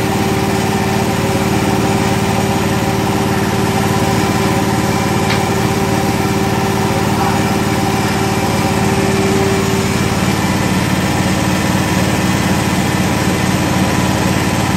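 Milking machine's vacuum pump and motor running with a steady, even hum while the teat cups are on the cow. A higher steady tone in it drops out about two-thirds of the way through.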